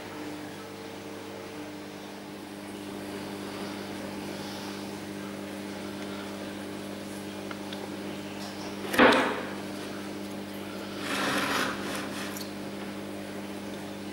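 A steady low hum runs throughout. About nine seconds in there is one sharp wooden tap, and about two seconds later a brief scrape. Both come from a thin curved wooden stem piece being handled and fitted against the bow of a pine hull mold.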